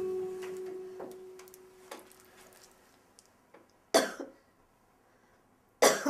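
A man coughs twice, loudly, about two seconds apart: once near the middle and again near the end. Before that, a plucked guitar note rings on and fades away.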